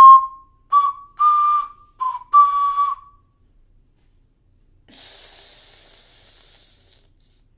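Five short, faltering notes on a 12-hole alto C ceramic ocarina, each a pure whistle-like tone near the top of its range, played haltingly by a beginner; the playing stops about three seconds in. After a pause comes about two seconds of breathy hiss, fading out.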